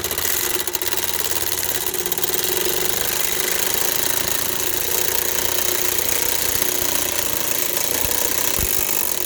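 Ryobi P235 brushed cordless impact driver hammering steadily, turning a 15/16 socket on a vehicle jack's drive screw to raise the vehicle under load.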